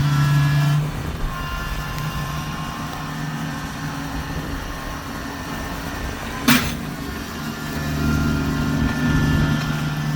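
Kubota tractor's diesel engine running: it quietens about a second in and picks up again near the end. A single sharp clunk comes a little past halfway.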